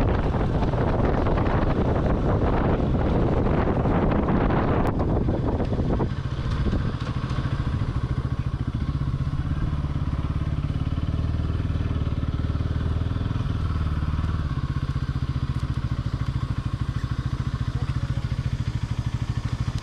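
Bajaj Pulsar NS200's single-cylinder engine running with wind noise on the microphone. About six seconds in the wind drops away, leaving a steady low engine note.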